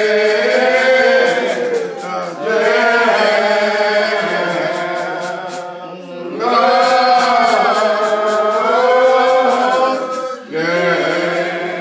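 Slow hymn singing led by a man's voice through a microphone, in long drawn-out held notes, with a short break between phrases about every four seconds.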